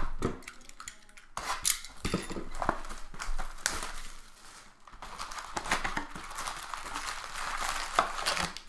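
Trading card pack wrappers crinkling and cards being handled: a run of small clicks and rustles.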